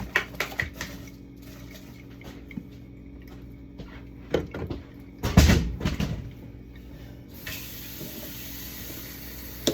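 Small clicks and knocks of containers being handled, a heavy thump about five seconds in, then a tap turned on and running as a steady hiss.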